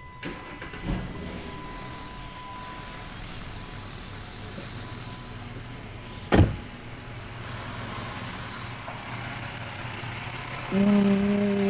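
Chrysler 2.7-litre V6 idling, getting louder as the engine bay is approached. A car door shuts with a single thud about six seconds in, and a steady pitched hum comes in near the end.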